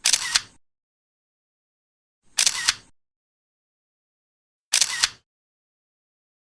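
Camera shutter sound effect, played three times about two and a half seconds apart, each a quick double click.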